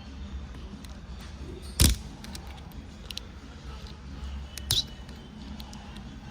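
Sharp metallic clicks of picks prying at a snap ring inside a clutch drum, a few separate ticks with the loudest about two seconds in and another near five seconds, over a low steady hum.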